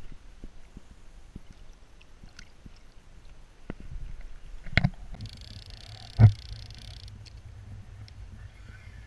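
A few knocks against a plastic sit-on-top kayak from handling on board, two of them clear, the louder one about six seconds in, over a low steady rumble.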